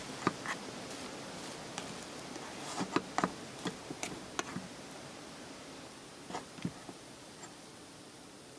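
Scattered light taps and clicks, irregular and closest together around the middle, over a steady hiss that slowly fades.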